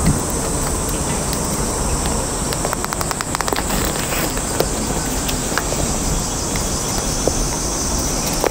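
Hands pushing a Vittoria Zaffiro bicycle tyre's bead back onto the rim, with scattered small ticks and a quick run of clicks about three seconds in. Under it runs a steady high insect drone and a low rumble.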